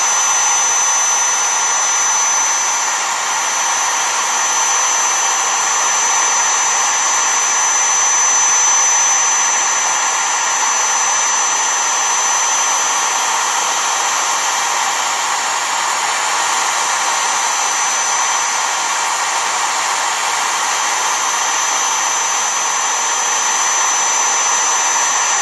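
CNC router spindle running at full speed, a steady high whine over hiss, as its bit carves a design into foam board.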